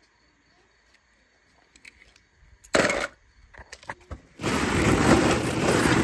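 Hollow plastic ball-pit balls clattering and rustling as a hand stirs through them, setting in about four and a half seconds in. Before that it is almost quiet, apart from a sharp click near three seconds and a few lighter knocks.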